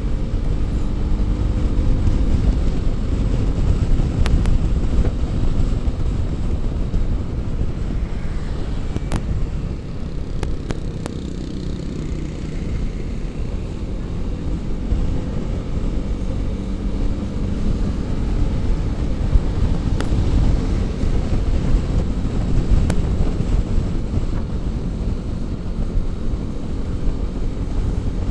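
Wind rumbling on the microphone over the steady running of a Honda ADV150 scooter's single-cylinder engine and its tyres on the road, cruising at city speed. A few faint ticks stand out now and then.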